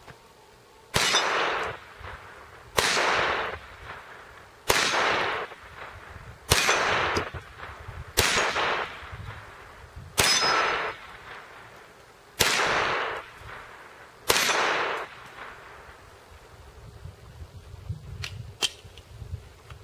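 Walther P22 pistol firing .22 Long Rifle rounds, eight single shots about every two seconds, each followed by the ring of a steel plate target being hit. A couple of faint clicks near the end.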